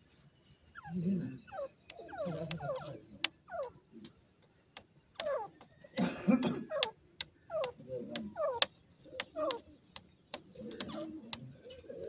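Grey francolins giving soft, short calls that fall in pitch, repeated in quick series, with sharp ticks in between.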